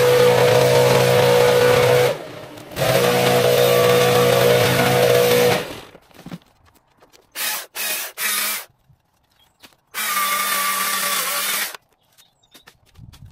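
Stihl MSA 220 battery chainsaw running in trigger bursts, cutting into the hedge. Two long runs of a few seconds come first, then a few short blips and one more run near the end. The motor falls silent in between instead of idling.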